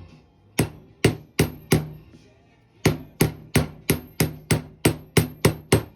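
Hammer striking a socket used as a flat driver, tapping a seal with a metal ring into the Cat 426 backhoe's boom hydraulic cylinder. Four taps come first, then after a short pause a steady run of about eleven taps, roughly three a second, as the seal is worked in evenly until seated.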